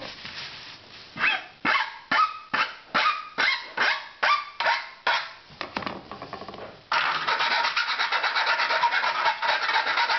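Hand file scraping across the freshly cut end of a metal roller blind tube, about two separate strokes a second with a faint metallic ring, then a quick continuous rasping for the last few seconds as the cut edge is smoothed.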